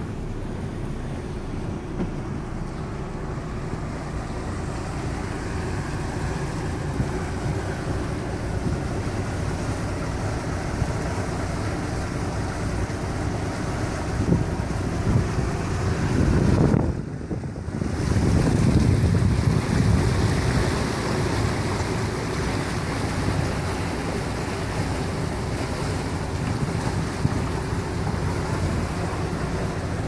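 Motor yacht under way: a steady low engine drone mixed with rushing water from the wake and wind buffeting the microphone. The sound dips briefly a little past halfway, then comes back louder for a few seconds.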